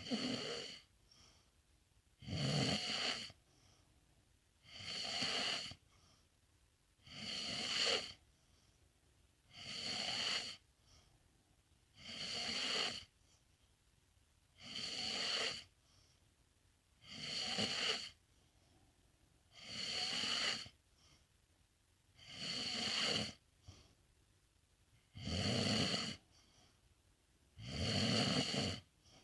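A sleeping pet snoring steadily, about one snore every two and a half seconds, each lasting around a second.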